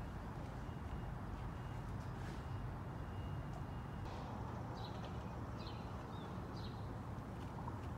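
Outdoor ambience: a steady low rumble, with a bird chirping from about halfway through in short high chirps less than a second apart.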